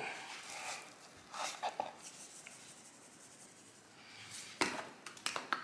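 Quiet handling sounds of a raw bone-in prime rib roast being turned and moved on a wooden cutting board: soft rubbing, with a few light taps and clicks near the end.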